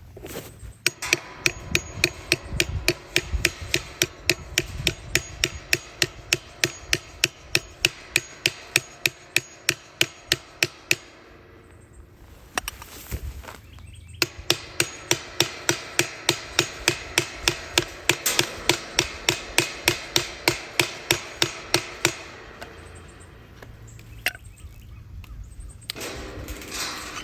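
Rapid, even hammer blows, about three a second, with a ringing metallic tone, in two long runs with a pause of a few seconds between them.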